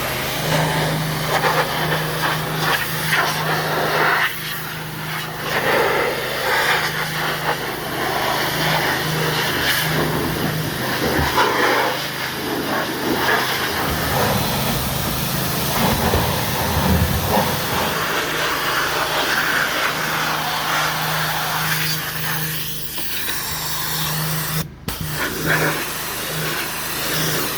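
A steady hiss of rushing air over a low motor hum, as from a vacuum or blower being used to clean out the car. The hum drops out for a few seconds in the middle.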